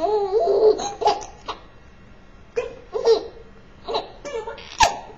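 Baby laughing in short bursts of giggles with pauses between; a sharp click near the end.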